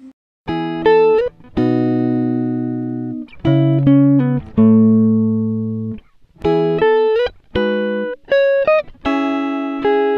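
Background music of guitar chords, each struck and left to ring and fade, with short gaps and a few sliding notes; it starts about half a second in.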